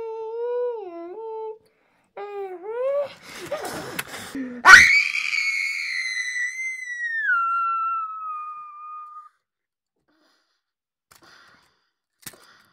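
A person's voice making wavering, moaning vocal sounds, then a sudden loud, high-pitched scream about halfway through that slides slowly down in pitch and fades away. A faint click near the end.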